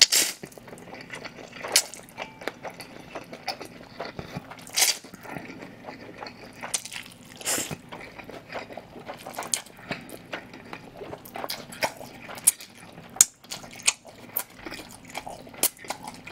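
Close-miked eating of cold spicy chewy noodles: repeated slurps as the noodles are sucked in, with chewing and short sharp clicks and crunches between them.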